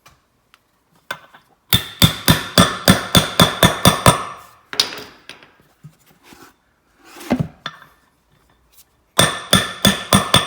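Hammer tapping a part into place on a lawn tractor's front wheel assembly, metal on metal with a ringing note. There are two quick runs of blows, about five a second, with a few single knocks between them.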